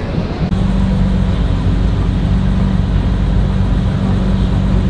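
A vehicle engine running at steady revs, with a steady low drone over a loud rumble; the drone sets in about half a second in.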